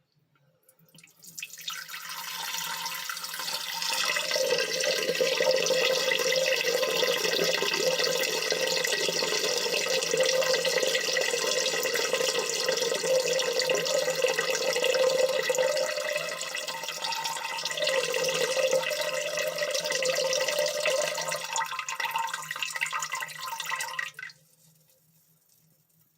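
A man urinating into a toilet bowl: a steady stream of liquid splashing into water, starting about a second in and cutting off about two seconds before the end.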